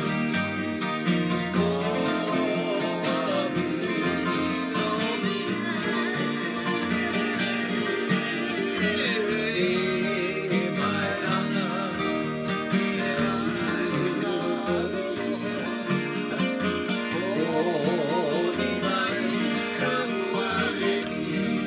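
Two steel-string acoustic guitars playing a Hawaiian song together in a Caribbean rumba rhythm, one strumming while the other picks the melody.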